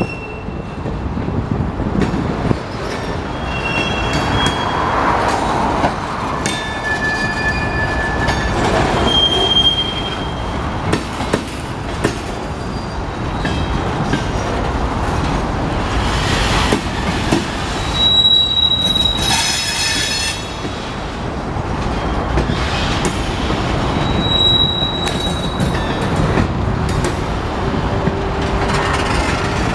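Freight cars of a slow-moving Union Pacific train rolling past: a steady rumble of wheels on rail, with high-pitched wheel squeals that come and go at changing pitches, loudest about two-thirds of the way through, and a few clanks.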